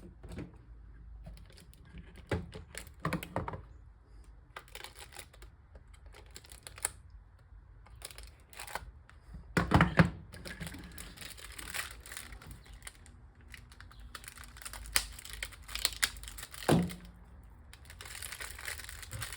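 Irregular small clicks, taps and knocks of hands working an X-Acto knife out of its slot in a wooden case. Two louder knocks stand out, one about halfway through and one a few seconds before the end.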